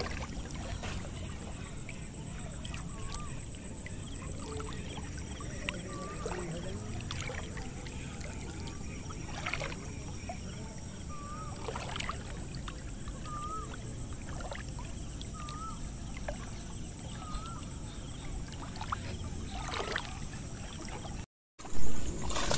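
Shallow water sloshing and swishing around the legs of a person wading, with a short chirp repeating every couple of seconds. Near the end comes a sudden loud splash as a large snakehead (seol fish) strikes the frog bait at the surface.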